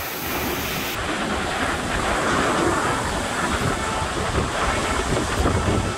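Hurricane-force wind blowing through trees, a loud, steady rushing that swells and eases in gusts, with a rumble of wind on the microphone. This is the wind of the hurricane's back side after the eye has passed.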